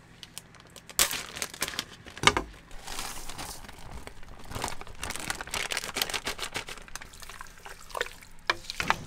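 A plastic bag of frozen peas crinkling as the peas are tipped into a pot of sauced pasta, with a knock about two seconds in. Then a utensil stirs through the pasta, clicking against the pot near the end.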